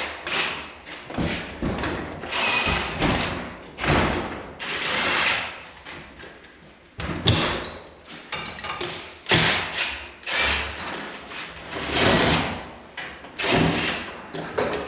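Irregular knocks, clanks and short bursts of power-tool noise from work on garage door hardware.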